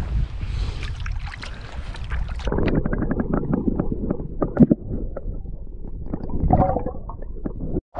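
Wind on the microphone and water moving in the shallows. About two and a half seconds in, the sound turns suddenly dull and muffled, heard from under water, with scattered knocks and gurgles.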